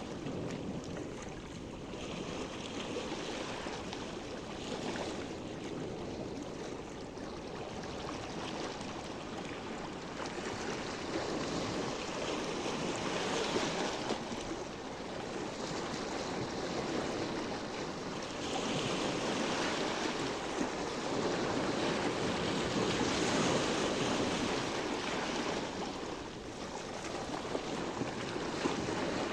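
Sea waves washing against the shore in a steady rush that swells and eases every few seconds, with some wind on the microphone.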